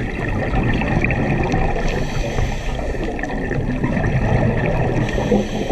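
Muffled underwater noise with gurgling water, recorded through a GoPro's waterproof dive housing.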